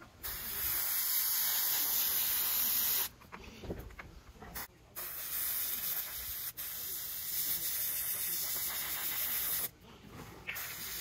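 Airbrush spraying paint, a steady hiss of compressed air that stops and starts as the trigger is worked: a spell of about three seconds, a pause, a longer spell of about five seconds, then a short break before it starts again near the end.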